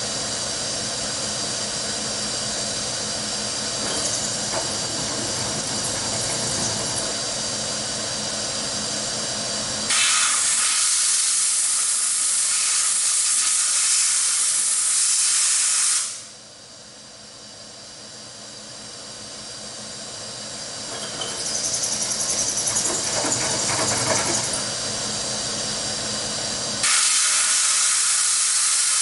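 Steady running of a vertical milling machine, broken by two long hisses of compressed air: one about ten seconds in lasting some six seconds, and another near the end, each starting and cutting off suddenly.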